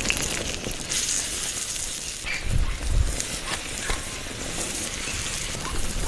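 Food sizzling on a hot stone slab over a wood fire, a steady hiss with scattered sharp crackles from the fire.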